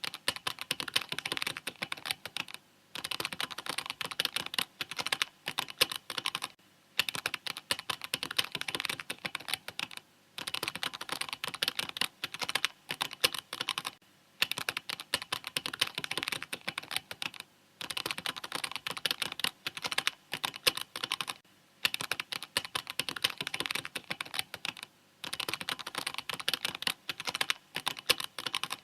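Fast, steady typing on a mechanical keyboard, a dense run of key clicks broken by a short pause every few seconds.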